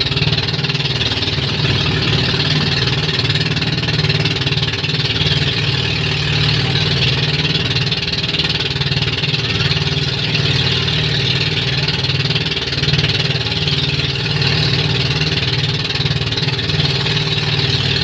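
Engine of a motorized outrigger boat running steadily with the boat under way across choppy water.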